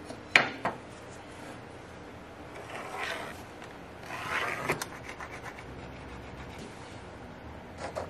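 Layout tools handled on an English walnut slab while the ends are marked out for squaring: a sharp knock just after the start and a lighter one right after, then two short scraping strokes on the wood about three and four and a half seconds in.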